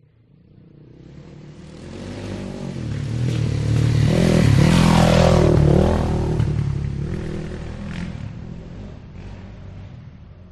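Motorcycle passing by: its engine grows steadily louder as it approaches, is loudest about halfway through with its note bending as it passes, then fades away.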